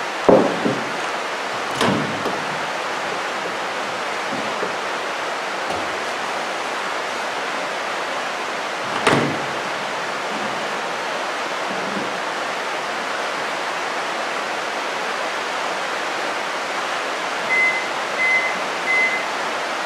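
Steady rain falling, heard as a continuous hiss, with a few knocks in the first two seconds and another about nine seconds in. Near the end, the Whirlpool microwave's keypad beeps three times as buttons are pressed.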